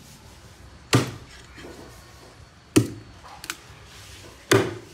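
Meat cleaver chopping raw meat on a round wooden chopping block: three sharp chops about two seconds apart, with a lighter knock between the second and third.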